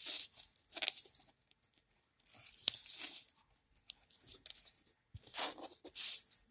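Plastic-foil shampoo sachet crinkling as it is handled and turned over, in irregular rustling bursts with one sharp click near the middle.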